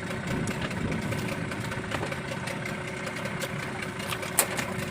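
A motor running steadily with an even hum and no change in pace.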